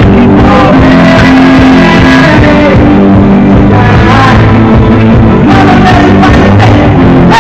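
Pop-rock band song with electric guitar and drums under a sung melody, loud and steady.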